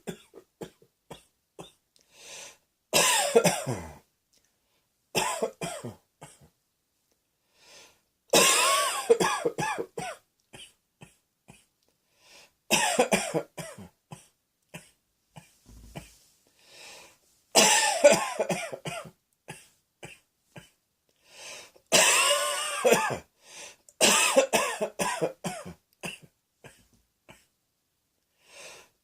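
A person coughing in about seven bouts a few seconds apart, each a loud run of coughs lasting a second or two, with faint clicks in the quiet gaps between.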